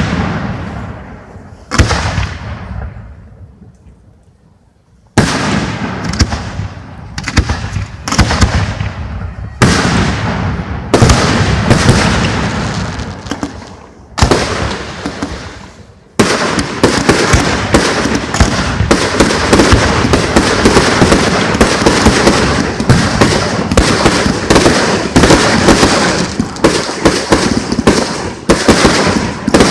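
Aerial fireworks exploding: single loud bangs a second or two apart, each dying away in a fading rumble. About halfway through they become a rapid, continuous barrage of many bursts.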